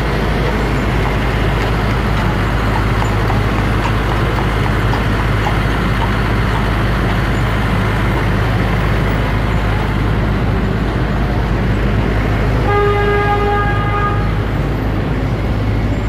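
Busy city street traffic: a steady rumble of engines and tyres, cut through near the end by one car horn honk held for about a second and a half.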